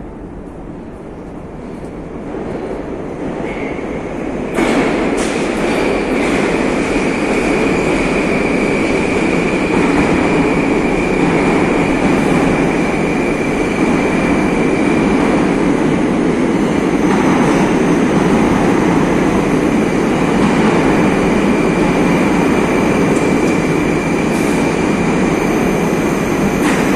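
Moscow Metro train rumbling through the station. The noise builds for a few seconds, then jumps sharply louder with a few clicks about four and a half seconds in. It stays loud after that, with a steady high whine over the wheel rumble.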